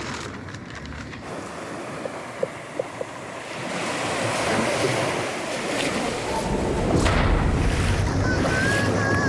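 Waves breaking on a beach, with wind buffeting the microphone. The surf grows louder a few seconds in, and a low wind rumble sets in later.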